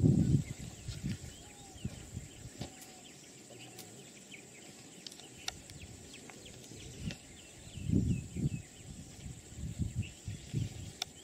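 Birds chirping with short repeated calls over a steady high insect buzz. About eight seconds in, a run of low thuds and rumbles comes louder than the birds.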